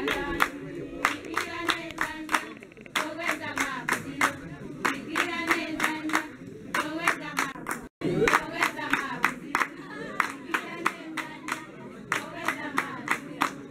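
A group of students singing together, with steady rhythmic hand clapping in time, about two to three claps a second. The sound breaks off for an instant about eight seconds in, then the singing and clapping carry on.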